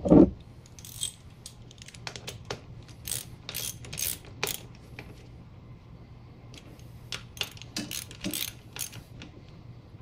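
A dull thump at the start, then scattered sharp metallic clicks and clinks of a wrench and bolts as a Brembo front brake caliper is bolted onto a motorcycle fork leg.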